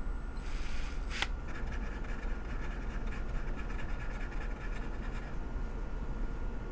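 Steady low hum with a short scratchy rustle and a sharp click just after a second in, like an object being handled close to the microphone.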